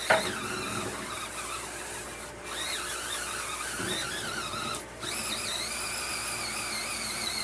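Cordless electric spin scrubber's motor whining as the brush spins against the bathroom surface, its pitch wavering and sagging under pressure, and twice it cuts out for a moment. The motor bogs down when pressed: it is too weak to keep turning with any pressure on it.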